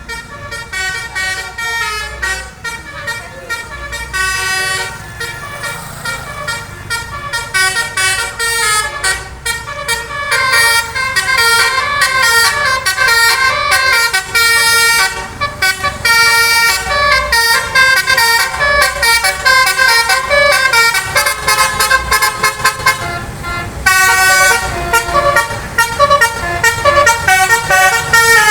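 Bus's multi-tone 'telolet' basuri air horn playing a fast melody of short notes, over a low rumble.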